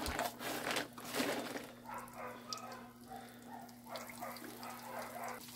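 Cornmeal-coated fish fillets frying in hot oil in a pan on a wood-fired stove: a steady sizzle with sharp crackles, thickest in the first second or so.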